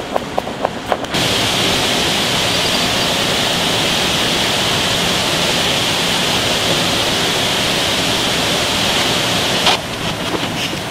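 A knife chopping a cucumber on a plastic cutting board, a few quick knocks in the first second, then the steady hiss of a pot of eel heads and bones boiling in broth. A single knock near the end.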